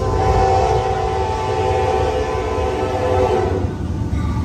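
Freight train of autorack cars passing close by, a steady rumble from the rails. A locomotive air horn sounds one long chord over it, which stops about three and a half seconds in.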